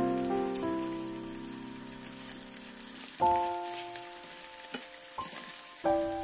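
Beef steaks frying in hot oil in a frying pan: a steady sizzle with scattered small pops and crackles. Background music of sustained notes and chords plays over it, with new chords struck a little after three seconds in and again near the end.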